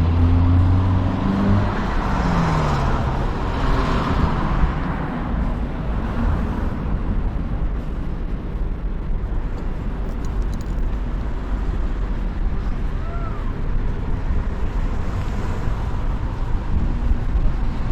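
Road traffic noise: a steady low rumble of vehicles, with one vehicle passing in the first few seconds, its engine note falling in pitch.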